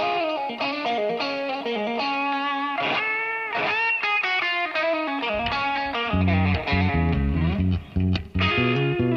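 Electric guitar playing a melodic line with bent notes, on its own at first. About six seconds in, a bass part comes in under it.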